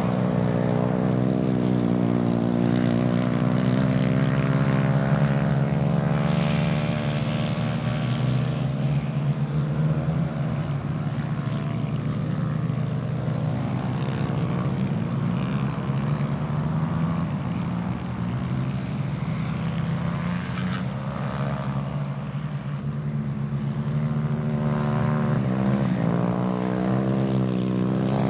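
Several small kart engines racing together in a steady buzz, their pitch rising and falling as the karts speed up and slow down.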